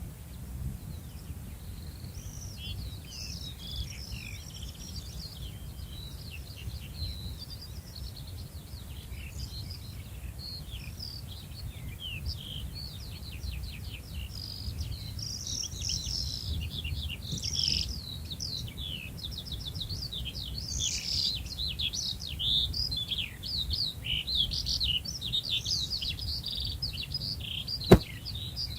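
A dense chorus of small songbirds chirping and trilling, many birds at once, growing busier in the second half, over a steady low rumble. A single sharp click sounds just before the end.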